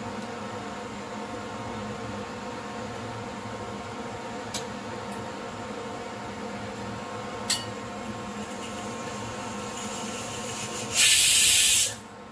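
A pressure cooker on an induction cooktop lets off steam in one loud hiss lasting about a second near the end, over the cooktop's steady hum. A few sharp clicks from a metal teaspoon scooping melon come earlier, two of them about halfway through.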